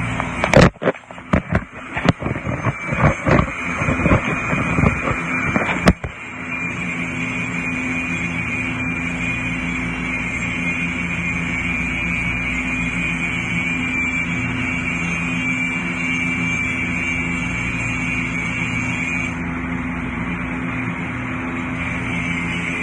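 Several irregular knocks and clatters for about six seconds, then an engine running steadily at an even speed.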